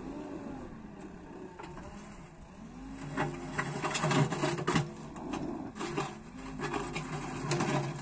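JCB backhoe loader's diesel engine running, its pitch rising and falling as the rear bucket digs into stony ground. From about three seconds in it grows louder, with clattering and scraping of stones against the bucket.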